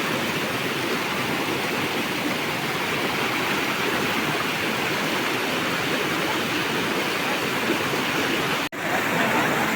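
River water rushing steadily over rocks, an even wash of flowing-current noise, broken by a split-second dropout near the end.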